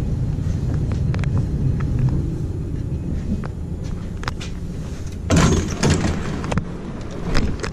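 Low-floor Bombardier Variotram tram rumbling from inside as it slows to a stop. About five seconds in, a loud, short rush of noise with clicks as its door opens.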